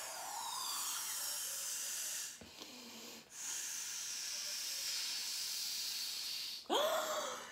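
Air blown steadily through a drinking straw into slime, inflating a slime bubble: a breathy hiss in two long blows with a short break for breath about two and a half seconds in. A brief, different sound comes near the end.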